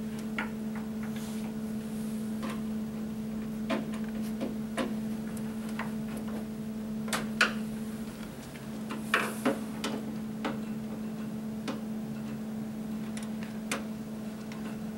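Cross-point screwdriver turning metal cam lock fasteners inside a flat-pack hutch: scattered light clicks and small knocks, a few louder ones in the middle, over a steady low electrical hum.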